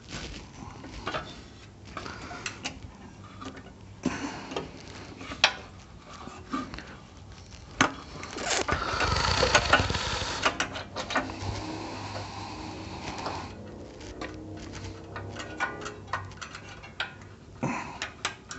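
Small metal parts clicking and knocking as a carburetor is fitted back onto a Honda generator's engine by hand, with a longer scraping noise about nine seconds in.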